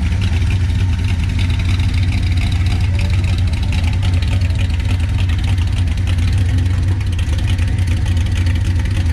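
Engine of an early-1950s Chevrolet gasser with side-exit exhaust pipes, running at low speed with a loud, steady pulsing exhaust note as the car creeps past.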